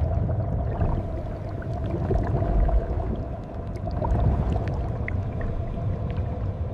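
Churning, sloshing water with a deep, continuous rumble and scattered small splashes and clicks.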